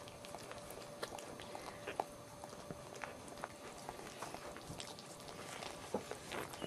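Dachshund mother licking her newborn puppy clean: irregular wet licking and smacking clicks.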